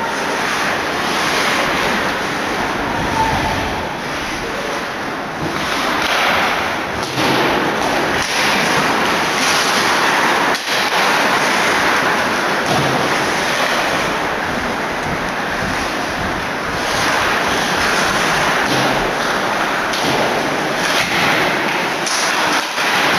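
Hockey crowd in an indoor ice rink cheering and shouting in a steady, loud din.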